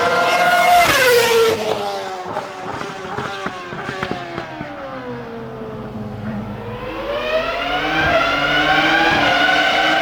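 Formula 1 car engine at high revs, falling in pitch for several seconds as the car slows, with a run of short sharp cracks on the way down, then climbing back up as it accelerates again.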